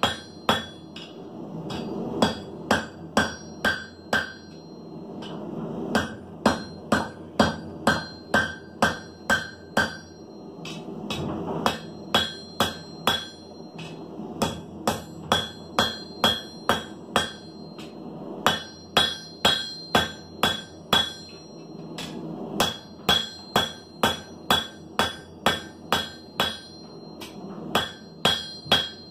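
Hand hammer striking a red-hot steel bar on an anvil, drawing it out to a taper: runs of sharp, ringing blows at about two a second, broken every few seconds by short pauses.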